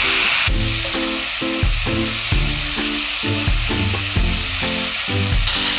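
Sliced pork and shiitake mushrooms sizzling in a hot frying pan as they are stir-fried with a spatula, a steady hiss throughout.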